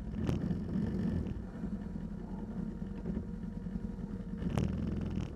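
ATV engine running at steady low revs, with two brief sharp clicks, one about a third of a second in and one near the end.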